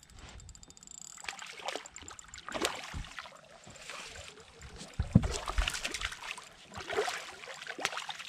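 Hooked trout splashing at the water's surface beside the boat in several irregular splashes. The loudest, a thump, comes about five seconds in.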